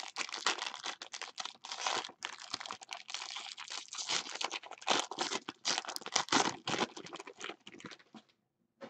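A foil trading-card pack being torn open by hand, its wrapper crinkling and crackling in a dense run of sharp little clicks that stops shortly before the end.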